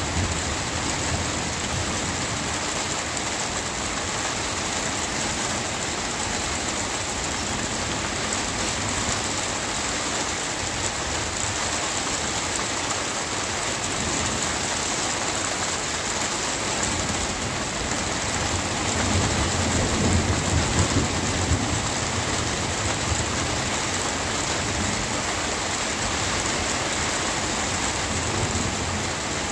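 Steady rain hissing without a break. A low rumble of thunder swells and fades about two-thirds of the way through.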